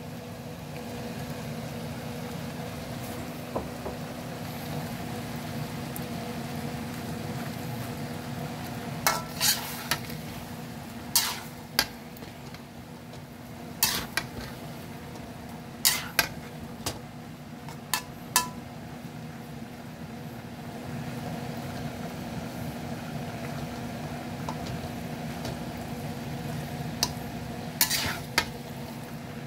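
Metal spatula scraping and clacking against a metal frying pan while tossing spaghetti and tuna, in scattered sharp knocks and short scrapes, heaviest through the middle and again near the end, over a steady low hum.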